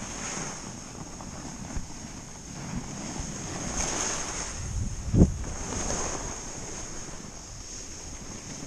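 Snow hissing and scraping under a snowboard as it slides slowly downhill, swelling and fading, with wind buffeting the microphone. One sharp thump about five seconds in.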